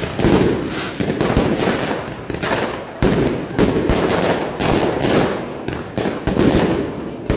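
Aerial fireworks bursting overhead: a rapid, irregular series of sharp bangs, each trailing off into crackling.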